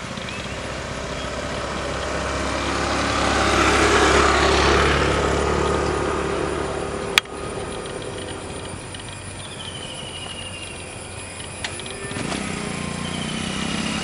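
Boeing 777 twin jet engines on final approach, a broad roar that swells to its loudest about four seconds in and then eases. A sharp click comes about seven seconds in, and birds chirp a few times in the second half.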